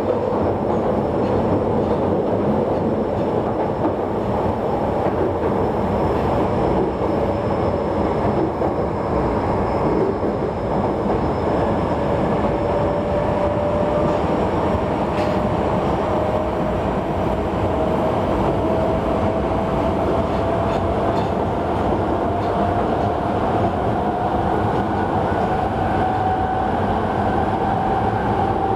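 Yokohama Municipal Subway 3000A car with Mitsubishi GTO-VVVF traction equipment running between stations, heard from inside the car: a steady rumble of wheels and track with a motor whine rising slowly in pitch. A single sharp click about halfway through.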